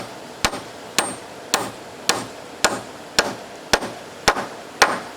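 Hammer driving a nail into wood with steady, evenly spaced blows, about two a second and roughly ten in all.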